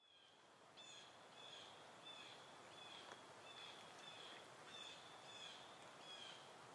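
Faint bird calling repeatedly: a short, slightly down-slurred note about every two-thirds of a second, over a low outdoor hiss.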